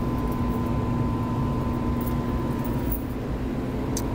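Steady background hum and low rumble with a constant faint whine, and a short click near the end.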